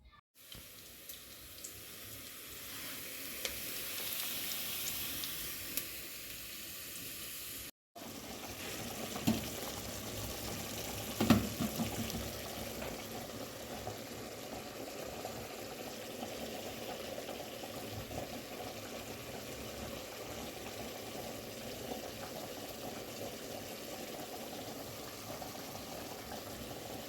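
Water running steadily, with a couple of sharp clinks of dishes about nine and eleven seconds in.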